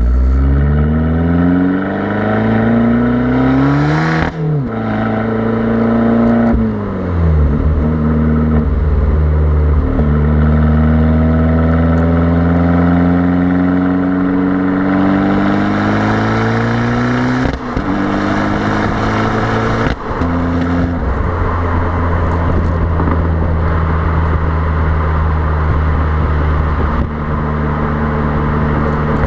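Fiat Abarth 595's 1.4-litre turbocharged four-cylinder exhaust, heard from beside the rear number plate, as the car accelerates hard through the gears. The note rises and drops sharply at each upshift three times in the first ten seconds, then climbs slowly through a higher gear before the throttle eases and it settles into steady motorway cruising.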